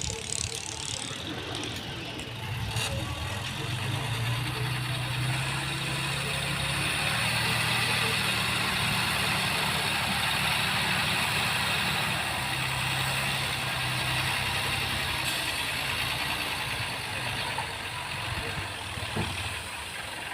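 Bulldozer engine running steadily, its note a little stronger from about four seconds in until about twelve seconds.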